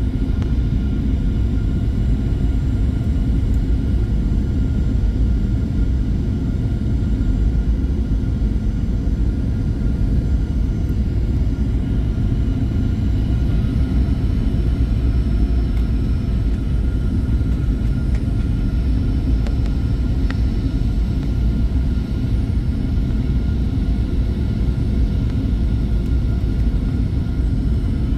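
Steady low rumble of a Boeing 737-800 heard from inside the passenger cabin: engine and airflow noise, with faint steady whines above it.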